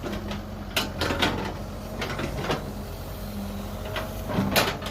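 Kobelco excavator working: its engine runs at a steady hum while sharp clanks and squeaks from the boom, bucket or tracks come several times, the loudest near the end.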